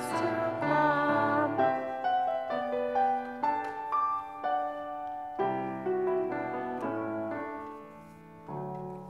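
Piano playing the closing bars of a hymn-like offertory song. The singing ends about a second and a half in, and the piano plays on in separate chords and notes, with a last chord struck near the end as it fades.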